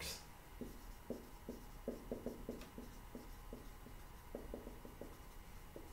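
Dry-erase marker writing on a whiteboard: a run of short, faint squeaks and strokes in quick clusters as letters are written.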